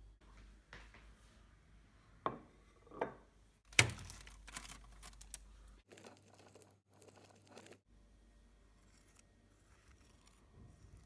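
Kitchen handling sounds on a ceramic plate: a few sharp knocks and clinks, the loudest about four seconds in, then light clicks as blueberries drop onto the plate, and faint scraping of a knife spreading crunchy peanut butter on a crumpet near the end.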